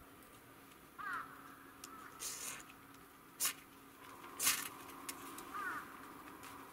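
A ferrocerium fire-steel rod being struck with a scraper to throw sparks onto tinder: a few short, hissing scrapes, the loudest about four and a half seconds in. A bird calls twice in the background, about a second in and again near the end.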